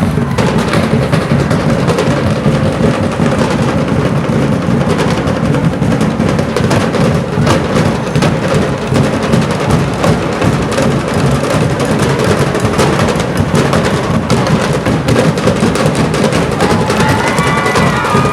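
Loud, continuous percussion-driven music: drums and knocking wood-block-like beats, as played for street dancing. Near the end a higher pitched melody line comes in over the drumming.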